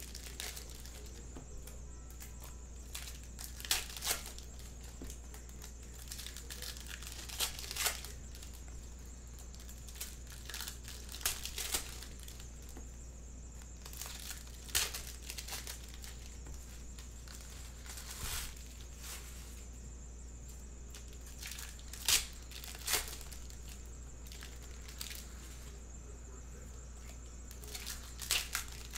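Topps Stadium Club baseball card pack wrappers being torn open and crinkled by hand, a short sharp crackling rip every three to four seconds.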